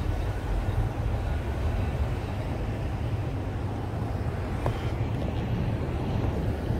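Wind buffeting a smartphone microphone over the steady running rumble of a heritage double-decker tram on the move.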